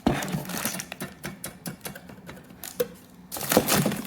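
Curtain rod hardware being handled: irregular light clicks and taps of small hard parts, with a louder rustling clatter about three and a half seconds in.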